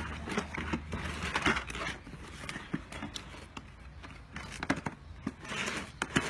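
Cardboard box being opened by hand: sellotape peeling and tearing off the flaps, with cardboard rustling and small knocks.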